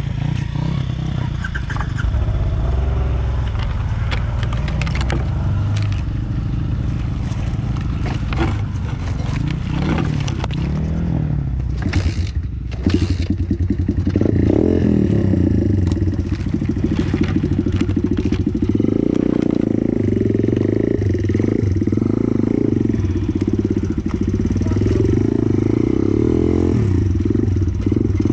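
Pit bike's single-cylinder four-stroke engine under way, its revs rising and falling unevenly through the first half, with a brief break about twelve seconds in, then held at steadier, higher revs.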